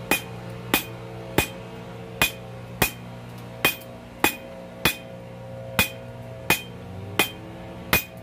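Hand hammer striking hot coil-spring steel on an anvil at a steady pace, about twelve ringing blows, over a steady low hum.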